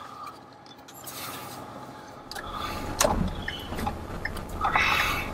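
Rubbing and clicking noises of things being handled inside a car, with a low rumble of the car moving off that comes up a little over two seconds in.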